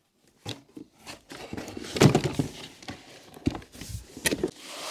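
Cardboard box and paper packing rustling and crinkling as car parts are handled in the box, with several dull thunks of heavy parts knocking against it; the loudest thunk comes about two seconds in.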